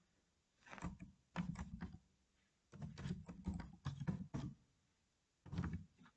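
Computer keyboard keys being typed in several quick runs of clicks, with short pauses between them.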